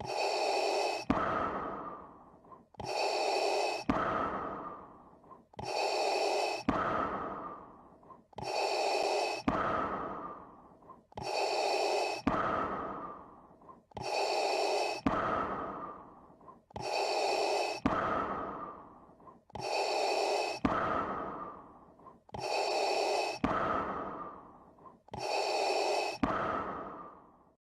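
Darth Vader's mechanical respirator breathing sound effect: slow, even in-and-out breaths repeating about ten times, roughly one full breath every two and a half to three seconds.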